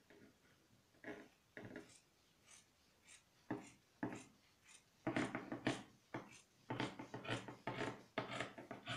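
Scissors snipping through folded stretch (lycra) fabric on a table: a series of short cuts, coming closer together and louder from about five seconds in.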